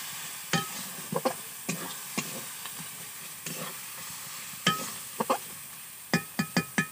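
A metal spatula stirring an onion and spice masala frying in a karahi. It makes irregular clacks and scrapes against the pan, some ringing briefly, over a steady sizzle, with a quick run of four clacks near the end.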